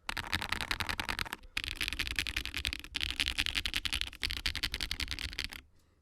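Fast typing on a budget 60% mechanical keyboard with KTT Rose linear switches and PBT Cherry-profile keycaps, on an FR4 half plate in an O-ring-mounted plastic case. Quick keystroke clacks in runs broken by short pauses, stopping shortly before the end.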